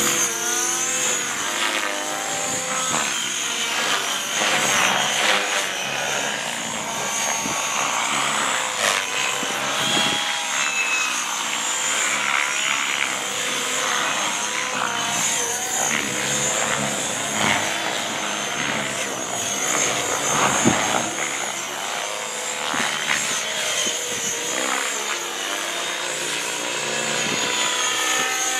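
Electric GAUI X3 radio-controlled helicopter flying aerobatics: a steady high motor and gear whine, with the rotor's blade noise gliding up and down in pitch as it swoops and changes direction.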